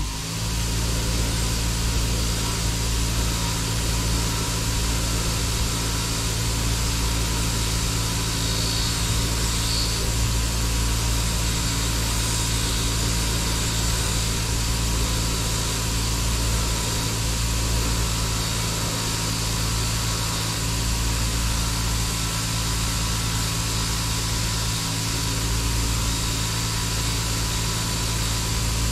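Electric bench grinder running steadily with a soft wire wheel, an old wooden knife handle held lightly against the spinning wheel to brush it clean.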